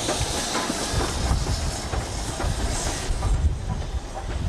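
Steam locomotive moving slowly along the track: steam hissing over a low rumble, with the wheels clacking over rail joints. The hiss fades about three seconds in.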